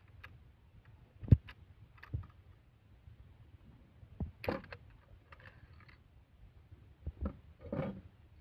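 Metal clicks and clacks of an AK-47-pattern rifle's bolt carrier being worked back and lifted out of the steel receiver during field-stripping. The loudest is a sharp knock about a second in. More clacks come around four and seven seconds in, the last a short rattle.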